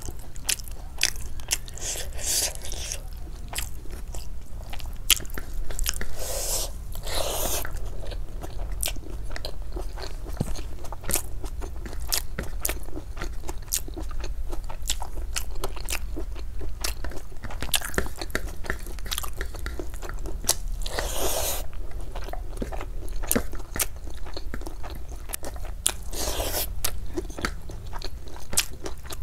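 A person eating rice and curry by hand close to the microphone: chewing with many small wet mouth clicks and smacks, broken by a few longer noisy stretches of about a second each. A steady low hum runs underneath.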